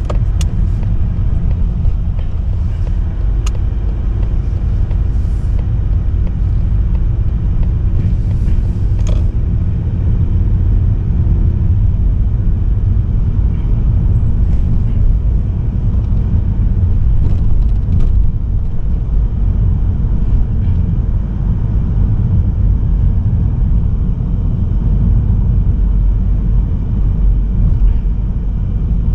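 Mazda3 sedan with a 1.8-litre diesel engine driving at speed, heard from inside the cabin: a steady low rumble of road and engine noise, with a few faint ticks.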